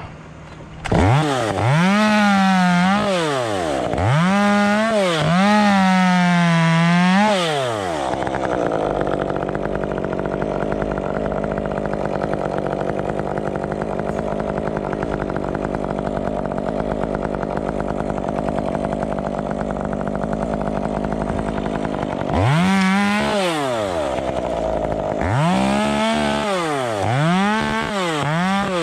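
Chainsaw running: revved up and down in several bursts early on, then running steadily at a lower speed for about fourteen seconds, then revved in a few more bursts near the end.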